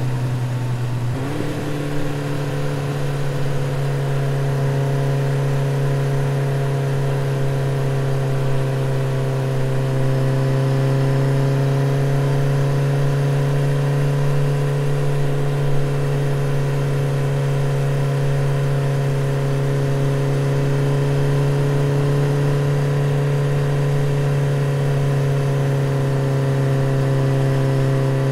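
Motorcycle engine running at a steady cruising speed, a continuous even hum. About a second in the pitch briefly drops and shifts before settling back into the steady drone.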